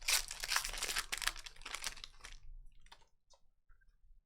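Foil trading-card pack wrapper crinkling as it is handled and ripped open, a dense crackle for about two and a half seconds, then a few faint clicks.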